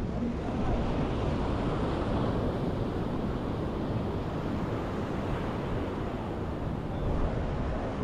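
Surf breaking and washing up the sand, swelling in the first few seconds, with a steady rumble of wind on the microphone.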